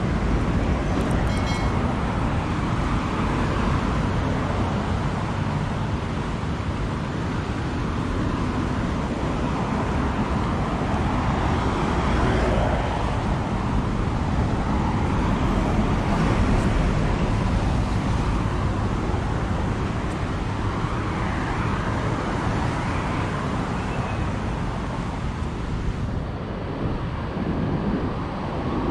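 Steady road traffic on a multi-lane avenue: cars and buses passing in a continuous wash of engine and tyre noise.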